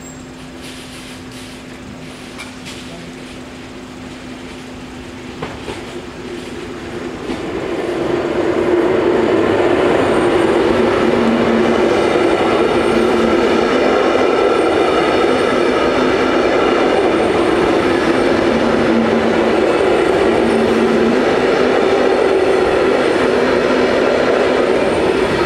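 Belgian MS96 electric multiple unit passing close by at a level crossing. The sound builds quickly a third of the way in and becomes a loud, steady rush of wheels on rail that lasts as long as the carriages are going by. Before the train arrives, a steady low hum is heard.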